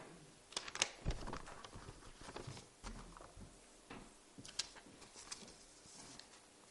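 Meeting-room handling noise as voting cards are passed in and counted: scattered light clicks, knocks and paper rustling, with a low thump about a second in.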